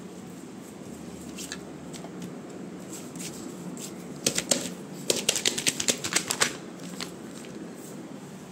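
Handling noise close to the microphone: rapid rustling and sharp clicks of craft materials being moved, in a cluster lasting about two seconds from about four seconds in.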